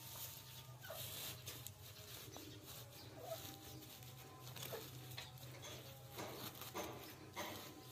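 A hand rustling and crackling through a dry grass nest, with scattered short bird chirps and a low steady hum underneath.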